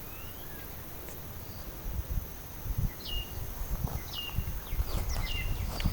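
Forest birds calling: a repeated call that drops sharply in pitch and holds a lower note, about once a second, over a steady high insect hum. Low wind gusts rumble on the microphone from about two seconds in.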